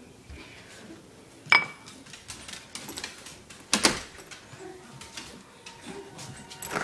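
Cat's food or water bowl being carried and handled: a sharp clink with a brief ring about a second and a half in, and a louder knock a couple of seconds later, among small rustling handling noises.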